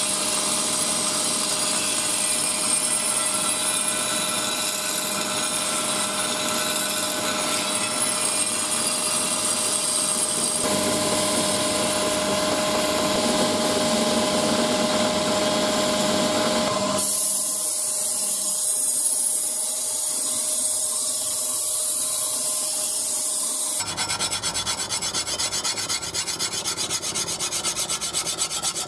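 Hand rubbing and rasping on the wooden handle of a cleaver during hand finishing, changing abruptly where the footage is cut; fast, regular back-and-forth strokes in the last few seconds.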